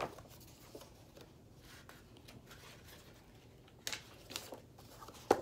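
Pages of a picture book being flipped and handled: a few short paper rustles and flaps, the loudest one near the end.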